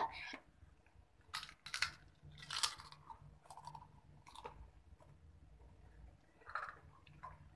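A person chewing food close to the microphone: a few short, irregular crunchy bites with gaps between them.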